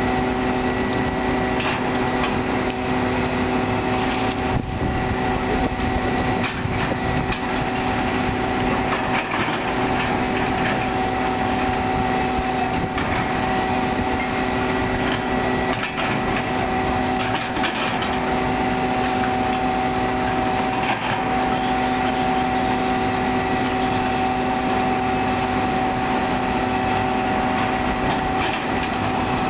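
Diesel engines of hydraulic excavators running steadily while they pull down a building, with a few faint knocks and wind noise on the microphone.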